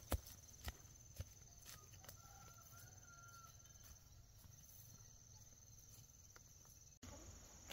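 Footsteps on a grassy dirt path fading out over the first couple of seconds as the walker moves away. Then near quiet, with a faint distant bird call lasting about a second and a thin steady high buzz underneath.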